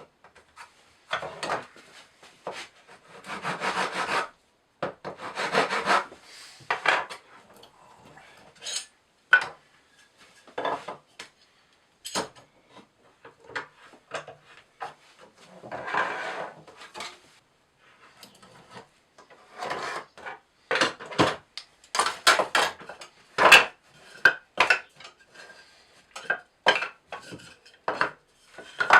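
Hand work on softwood timber: a few rough sawing or rasping strokes lasting about a second each in the first seconds, then a string of sharp wooden knocks and clicks of tools and timber.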